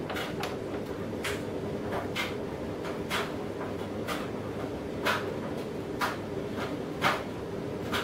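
Hex key clicking as it turns and reseats in the 4 mm Allen bolts of a motorcycle fairing panel: short sharp clicks about once a second, the loudest a few seconds in, over a steady low hum.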